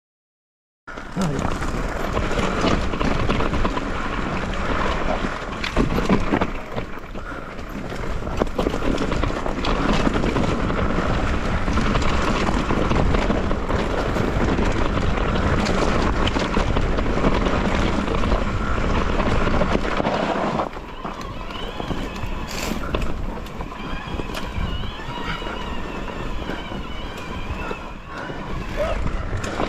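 Wind buffeting the microphone over a steady rushing noise on the move, with a few sharp knocks; it eases slightly about two thirds of the way in, where faint wavering whistle-like tones come through.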